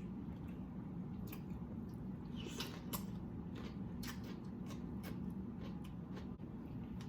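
Close-up wet eating sounds: a person chewing and handling saucy barbecue shrimp, with scattered short smacks and squishes, a longer squelch about two and a half seconds in, over a steady low hum.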